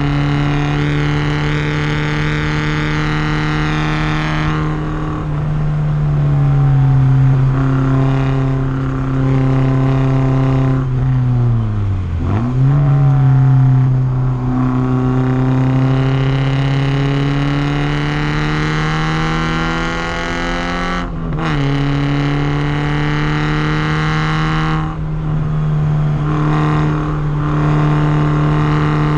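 Porsche 944's four-cylinder engine at full throttle on a race track, revs climbing and falling with the gears. The pitch dives and picks back up around twelve seconds in, then climbs steadily until it drops sharply at an upshift about two-thirds of the way through.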